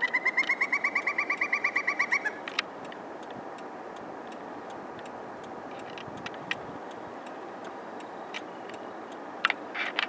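Pileated woodpecker calling: a rapid, even series of about twenty loud notes in just over two seconds. The pitch rises slightly at the start and then holds level until the series stops.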